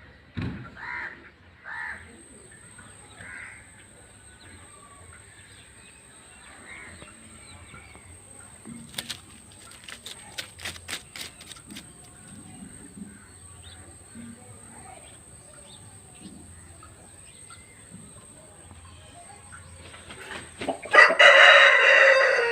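Aseel rooster crowing loudly near the end, after scattered short clucks and a quick run of sharp clicks midway.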